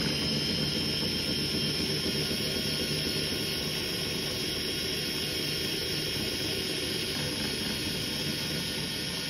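Tiri Smart cordless electric screwdriver's small motor running continuously, a steady high whine over a motor hum that holds an even pitch and level.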